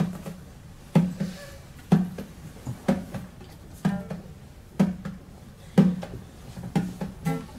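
Kete hand drum beating a slow Nyabinghi heartbeat rhythm: a deep stroke about once a second, with a few lighter taps between, and an acoustic guitar playing along.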